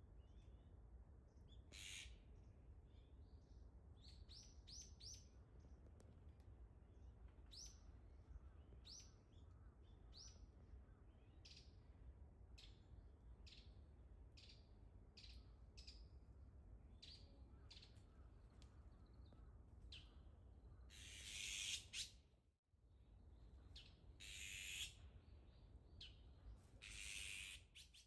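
Azure-winged magpies calling faintly: a run of short, rising chirps, then three harsh, rasping calls of about a second each in the last third.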